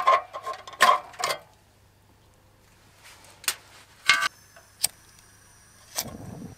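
Metal heat plate of a portable propane grill clanking and rattling against the grill body as it is lifted out, followed by a few single sharp clicks while the burner is lit, and a short rush of sound about six seconds in as the propane burner catches.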